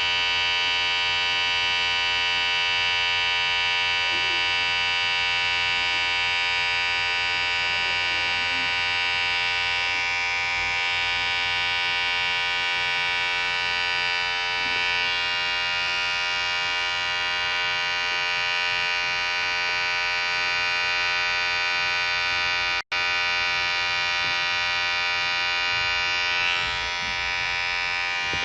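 Electric hair clipper running steadily with a continuous, even buzz. It cuts out for an instant about three quarters of the way through.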